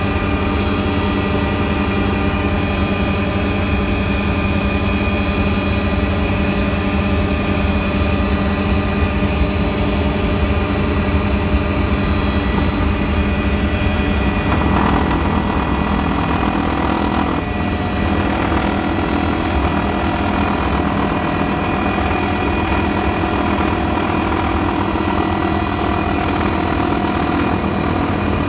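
Tour helicopter's turbine engine and rotor running in steady flight, heard from on board as a loud continuous drone with a whine over a low rotor beat.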